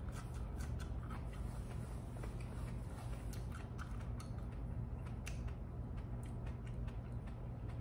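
Quiet room tone: a steady low hum with faint, scattered short clicks.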